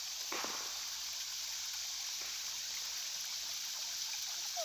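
Steady hiss of water running at a small waterfall.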